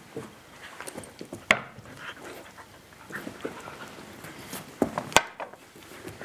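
Two puppies, a Bearded Collie and a Bearded Collie/Bobtail mix, scuffling in play at close range, with scattered clicks and sharp knocks, the loudest about five seconds in.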